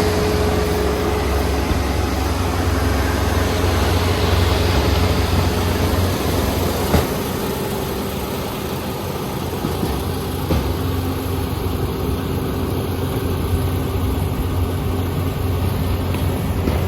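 A rice harvester's engine running steadily at constant speed, with a single sharp knock about seven seconds in.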